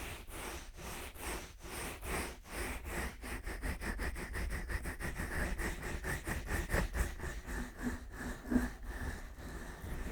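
Fingers rubbing and massaging the silicone ears of a 3Dio binaural microphone, slick with Vaseline, in quick repeated strokes about three a second, heard as close, full rustling swishes.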